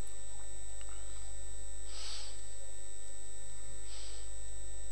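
Steady electrical mains hum, with two brief soft hisses about two and four seconds in.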